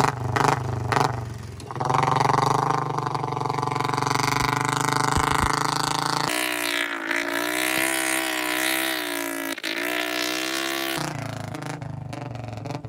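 Royal Enfield Bullet single-cylinder engine running, its exhaust led through an extension pipe into ditch water. The sound changes abruptly for a few seconds in the middle: the low engine note drops out and a wavering tone takes over before the engine sound returns.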